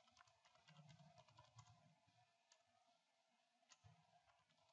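Near silence with faint, scattered computer keyboard key clicks as a password is typed into a web form.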